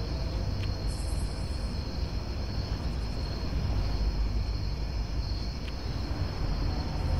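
Steady outdoor night ambience: a low rumble and hiss with a thin, steady high tone, and a short high chirp about a second in.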